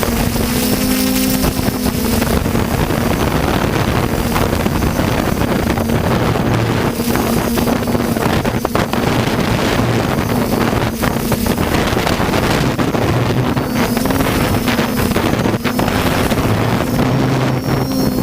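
Skyhero Little 6 hexacopter's electric motors and propellers running with a steady hum and whine, the pitch shifting slightly up and down as the drone holds its flight, with wind noise on the microphone.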